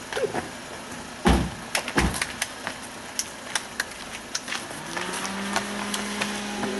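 Small van idling while people move around it on foot, with scattered clicks and scuffs. There are two heavy thumps a little over a second in. Near the end a steady low hum sets in and holds.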